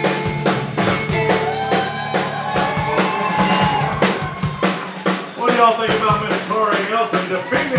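Live country band playing an uptempo fiddle tune: a fiddle playing fast, bending runs over a steady drum-kit beat.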